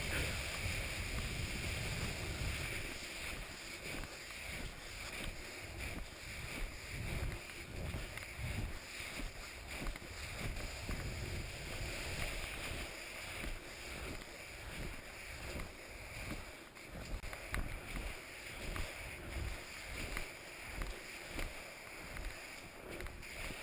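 Steady rhythmic steps through deep snow with pole plants, a soft crunch and swish about twice a second, over wind on the microphone.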